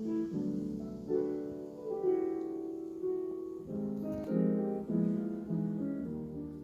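Background piano music: a gentle piece of sustained chords that change every half second or so.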